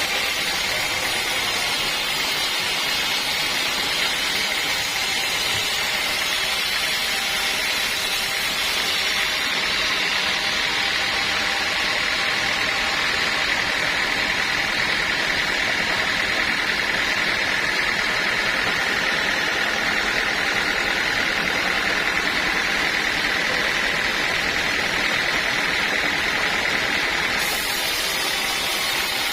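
Sawmill saw running steadily, with a high steady whine that grows stronger about a third of the way in and eases off near the end.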